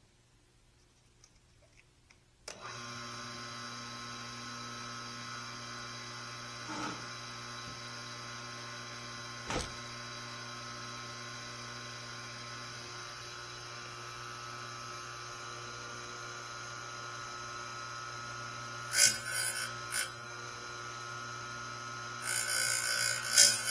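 A small electric grinder used for sharpening bandsaw blades switches on about two and a half seconds in and runs with a steady hum. Near the end the wheel grinds against the blade teeth in short loud bursts: two brief touches, then a longer grind.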